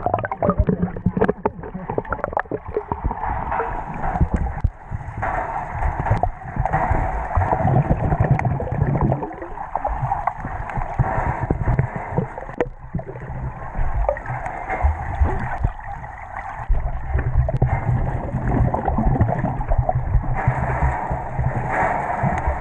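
Muffled underwater sound of a swimming pool through a GoPro's waterproof housing: water churning and gurgling around the camera as people move and kick in the pool. There are many small clicks in the first couple of seconds.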